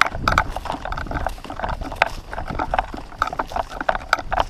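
Footsteps swishing through grass at a walking pace, with carried gear clicking and rattling in a quick, irregular patter.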